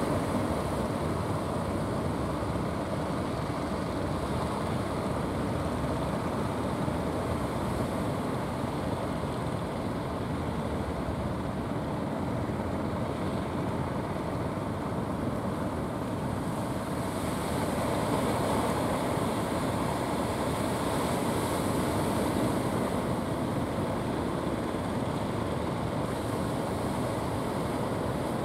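Steady wash of sea surf and wind, with the motor of a wooden fishing boat coming in toward shore running underneath. The noise swells a little about two-thirds of the way through.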